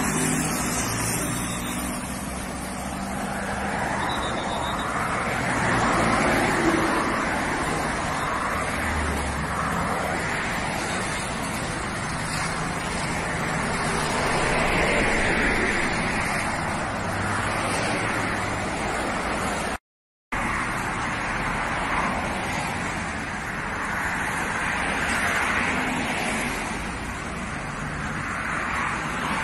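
Highway traffic going past: a steady rush of cars and trucks that swells every several seconds as vehicles pass close by. The sound cuts out completely for a moment about two-thirds of the way through.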